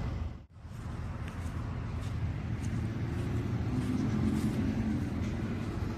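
Volvo EC220 excavator's diesel engine running steadily, a low rumble broken by a brief drop-out about half a second in.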